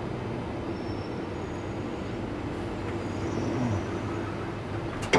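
Northern Line tube train heard from inside the driver's cab while it brakes round a bend into a station: a steady running rumble with a low hum and a short falling whine about three and a half seconds in. A sudden sharp knock comes right at the end.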